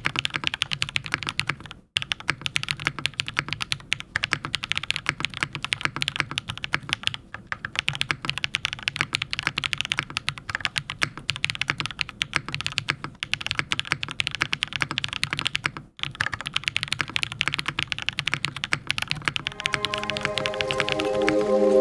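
Fast, continuous typing on a PolyWorks Ahgase custom mechanical keyboard with an aluminum plate, Singularity switches and GMK Olivia keycaps, breaking off briefly twice. Music fades in near the end.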